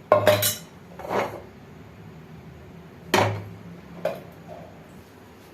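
Metal cookware and utensils knocking and clinking around a pressure cooker on the stove while oil is added, four separate knocks.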